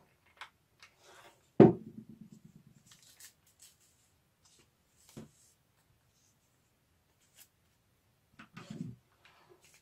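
Paper strips rustling and crinkling as they are handled and shaped, with one sharp knock on the tabletop about a second and a half in and a few dull thumps near the end.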